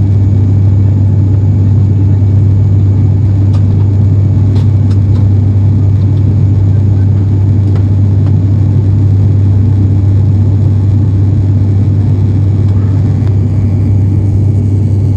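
Steady drone of an airliner heard inside the cabin: engine and airflow noise with a strong low hum.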